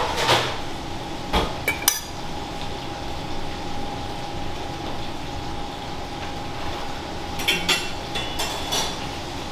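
Sharp clinks and knocks of kitchen utensils and dishes: a few in the first two seconds and a quick cluster about three-quarters of the way through, over the steady hum of a working commercial kitchen with a faint constant tone.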